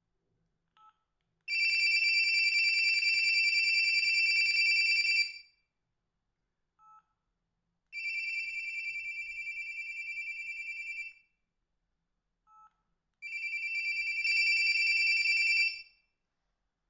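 Samsung SH-710 mobile phone playing ringtone previews through its buzzer: three high, rapidly trilling two-tone rings of three to four seconds each, each one preceded by a short keypad beep.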